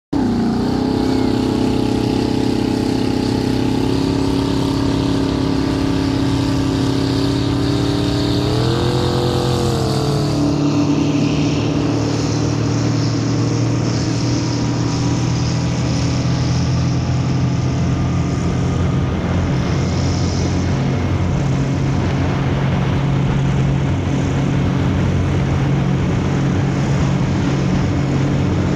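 Motorboat engine running at speed, heard from on board over a steady rushing hiss. Its pitch swells up and back down about eight to ten seconds in, then holds a steadier, lower note.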